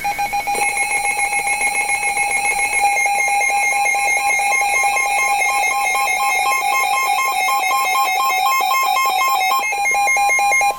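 Emergency Alert System attention signal: a loud, steady two-tone alarm held for about ten seconds, right after the last half-second of the warbling data-burst header. It announces an incoming tornado warning.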